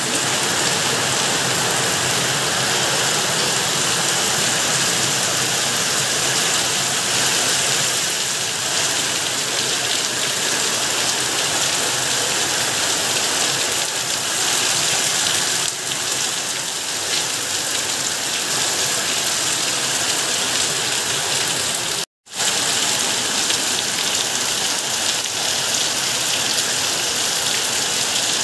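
Heavy rain pouring down steadily on a paved yard and foliage. It cuts out for a moment about three-quarters of the way through.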